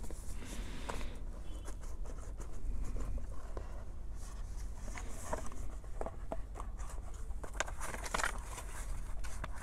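Cardboard box of an LED headlight bulb kit being opened and its paper manual handled: faint scattered rustles, scrapes and light taps.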